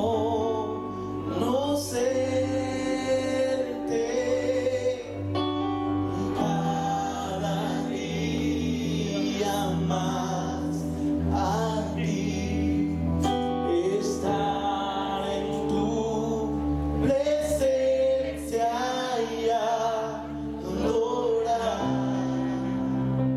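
Live Spanish-language worship song: a male and a female singer over keyboard and electric guitar.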